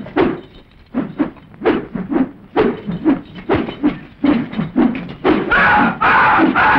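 Fight-scene grunting and huffing: a quick run of short, breathy grunts about three a second, then a longer shout near the end.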